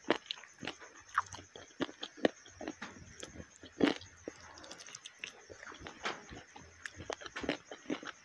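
Close-miked wet chewing, biting and lip smacking of masala-sauced chicken wings and chips, a quick irregular run of sharp clicks with the loudest bite about four seconds in.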